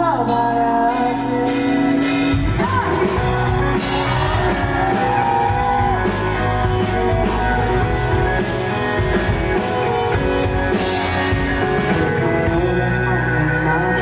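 Live band music: a male singer holds a short sung line about a second in, then the band plays an instrumental passage with guitar and drum kit.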